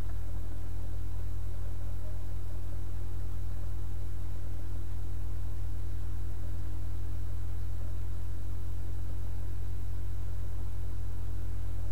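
Steady low hum with a few fixed buzzing tones above it and a light hiss, unchanging throughout.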